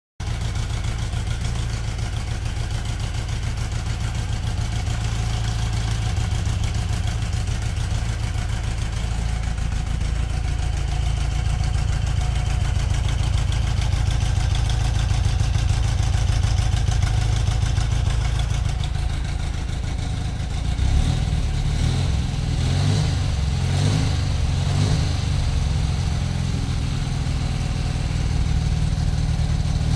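BMW R60/7 air-cooled flat-twin engine running on freshly rebuilt carburettors, idling steadily, then revved in a few short throttle blips from about twenty seconds in.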